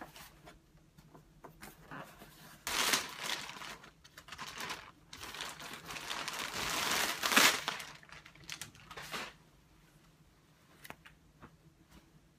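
Plastic poly mailer bag crinkling and being torn open by hand, in several bursts of rustling and ripping, loudest from about three to eight seconds in, then quieter.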